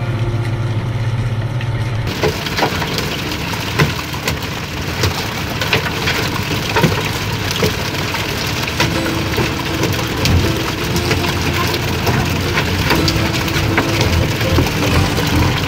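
A boat engine hums steadily for the first two seconds. Then comes a steady rush of sea and spray, dotted with many sharp knocks and slaps as pole-caught tuna land and thrash on the boat's wooden deck.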